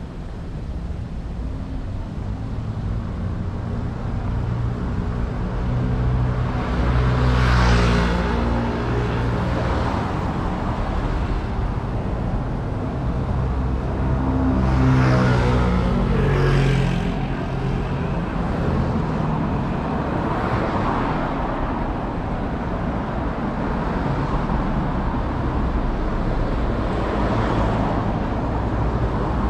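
Road traffic on a busy city street: engines running low and steady, with vehicles passing close by about a quarter of the way in and again around halfway.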